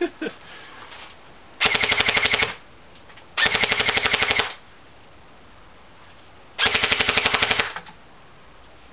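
G&G TR16 A3 airsoft electric rifle (AEG) firing three full-auto bursts of about a second each, a rapid even rattle of shots, with pauses of a second or two between bursts.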